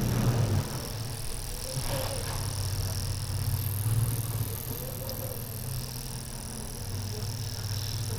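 Toyota Avalon V6 engine running with a steady low hum. It has a cylinder 6 misfire, caused by a clogged fuel injector.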